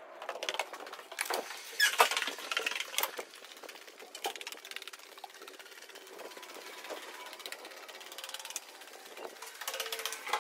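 Footsteps and rustling handling noise from a hand-held phone carried while walking, with irregular clicks throughout; the loudest come about two and three seconds in.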